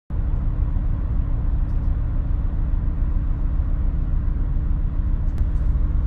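An engine running steadily with a low, even rumble, starting abruptly as the recording cuts in.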